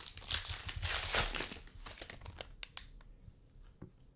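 Foil trading-card pack wrapper crinkling and tearing as it is opened, for about two seconds, followed by a few light clicks and taps of cards being handled.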